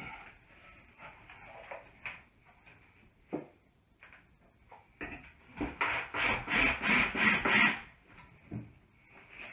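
Cordless drill running in a series of short surges, about three a second, for about two and a half seconds, with a few scattered knocks before and after.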